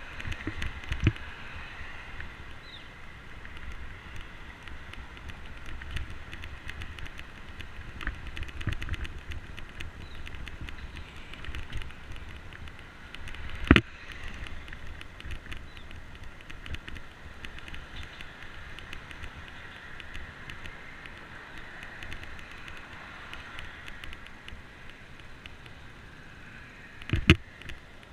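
Bicycle rolling along a concrete path: steady tyre and road noise, with a few sharp knocks as the bike jolts over bumps, the loudest about halfway through and a double knock near the end.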